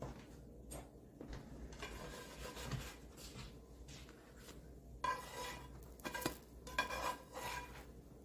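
A slotted spatula scraping and knocking against a frying pan and a plate, with light clinks of the plate, as slices of French toast are lifted out of the pan and set down. Scattered scrapes and knocks, busiest in the second half.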